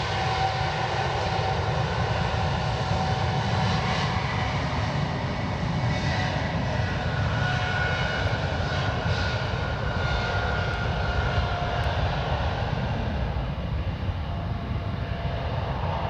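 Airliner jet engines running loudly as a plane passes: a steady rush with whining tones on top, easing slightly in the last few seconds.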